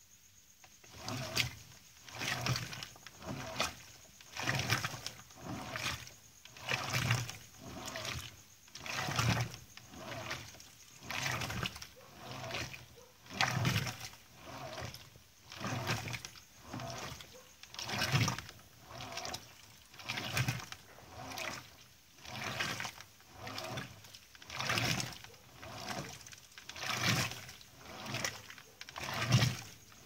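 Electrolux LDD16 16 kg top-load washing machine starting its agitation about a second in, on the extra-low water level: the agitator swishes the clothes and water back and forth in even strokes, about one a second, each with a low motor hum.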